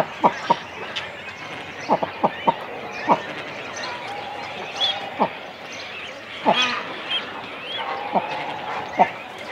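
Cormorant nesting colony, heard close: a run of short, sharp calls that fall in pitch, several in quick succession about two seconds in and singly after that, with higher chirping from other birds behind and a steady background murmur of the colony.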